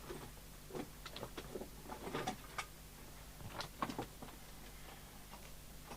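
Scattered light clicks and taps of handling at a workbench, a few louder ones about two seconds in and again near four seconds, over a faint steady hum.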